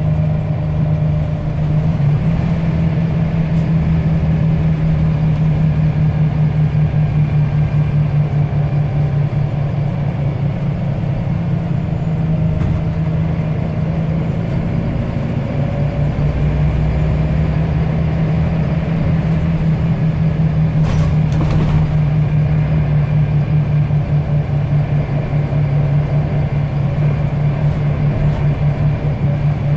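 Diesel engine of a Scania L94UB single-deck bus running at a steady speed, with a low, evenly pulsing note. A short clatter cuts through about two-thirds of the way in.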